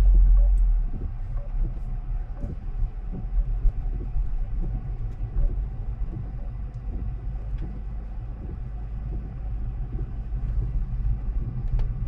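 Car cabin rumble while driving slowly on a wet country lane: low, steady engine and tyre noise, a little louder for the first second, with faint short ticks scattered through it.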